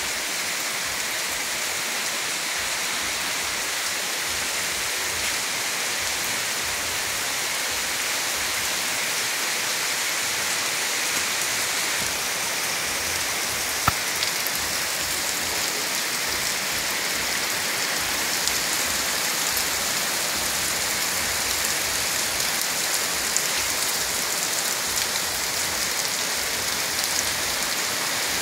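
Heavy rain falling steadily, a dense even hiss, with one sharp tick about halfway through.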